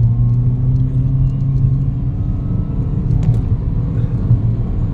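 Toyota Vios 2020's dual VVT-i four-cylinder engine and road noise heard from inside the cabin as the car is driven and accelerated: a loud, steady low rumble with a faint engine tone rising slowly over the first two seconds.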